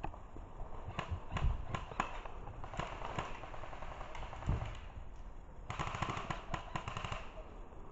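Airsoft guns firing: scattered single shots in the first few seconds, then a rapid burst lasting about a second and a half near the end.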